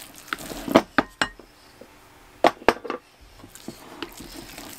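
A wooden spoon mixing ground pork in a bowl, knocking against the bowl's sides. There are short sharp knocks in two clusters, around one second in and again around two and a half seconds in, with a few lighter taps after.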